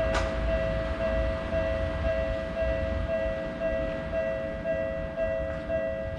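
Japanese railway level-crossing alarm ringing its repeated "kan-kan" about twice a second, over the low rumble of a train that fades about three seconds in. A single sharp click comes just after the start.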